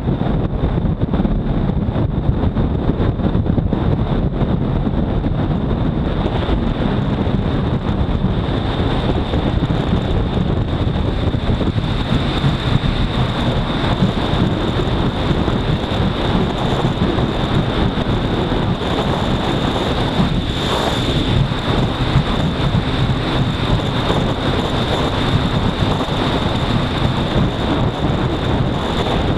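Wind rushing over the microphone and a Honda CBR250R's single-cylinder engine running hard at high speed, steady in level, with a thin high whine that grows stronger after about eight seconds.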